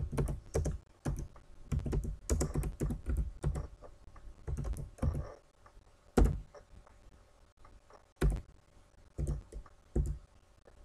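Typing on a computer keyboard: irregular runs of keystrokes, with a few louder single key strikes about 6 and 8 seconds in.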